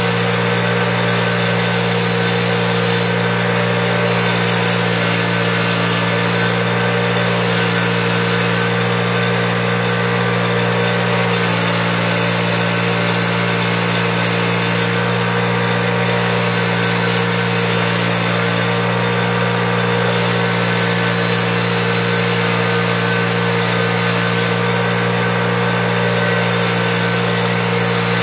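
Bench grinder motor running steadily while an engine valve from a Honda F23A1 cylinder head is held against its spinning wheel to scrub off carbon deposits.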